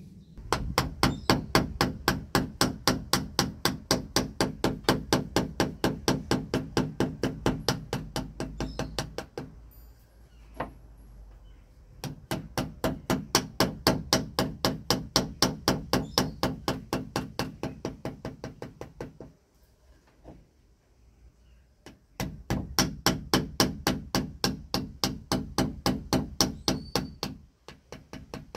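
Wooden mallet rapidly tapping the back of a knife blade set against the end of a wooden staff, batoning the blade to shape the staff's end. About four to five knocks a second, in three long runs with brief pauses between them.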